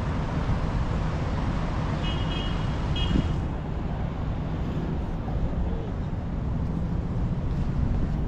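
Steady hum of road traffic from busy city streets below, with a few short high chirps about two to three seconds in.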